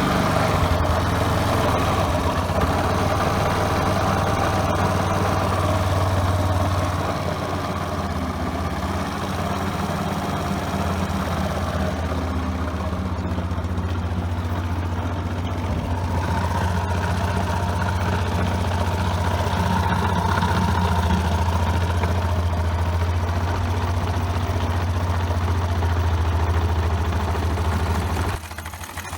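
Suzuki Address V125 scooter's single-cylinder four-stroke engine idling steadily, with a brief dip in level near the end.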